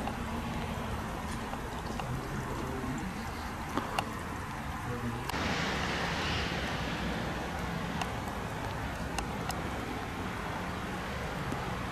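Outdoor street ambience: a steady low background rumble with a few faint clicks, and a rush of hiss that starts suddenly about five seconds in and fades over about two seconds.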